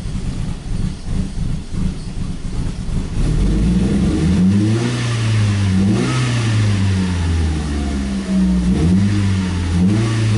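Ford Focus engine running rough and uneven, then about three seconds in its speed climbs and falls several times. The engine is misfiring and losing power, with the long-term fuel trim stuck at minus 25% pulling fuel it should not, while the upstream oxygen sensor reads lean.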